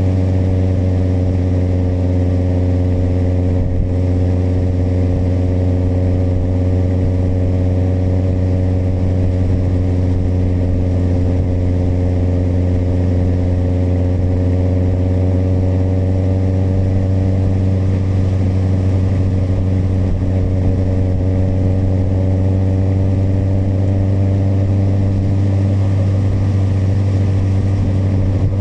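Kawasaki motorcycle engine running at a steady cruising speed, a constant drone that holds nearly the same pitch throughout.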